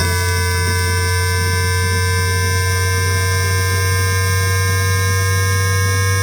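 Times Electric tPower-TN28 VVVF traction inverter and motors of a Shenzhen Metro Line 14 train, heard through an inductive pickup. A chord of steady electrical whining tones sits over a strong low hum, and all of it rises slowly in pitch, as it does when the train picks up speed.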